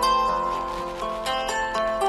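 Background instrumental music: a light melody of plucked string notes, one note after another.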